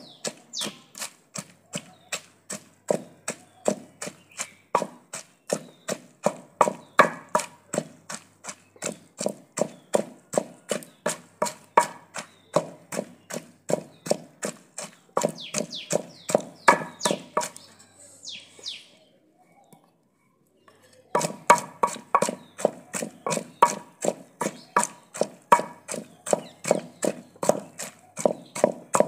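Wooden pestle pounding mint, green chillies and chopped onion in a clay pot: steady, even thuds about three a second. The pounding stops for about two seconds past the middle, then resumes.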